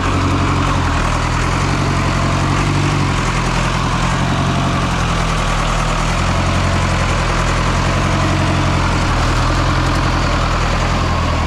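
Farm tractor engine running steadily at an even pace as the tractor crawls through the bush.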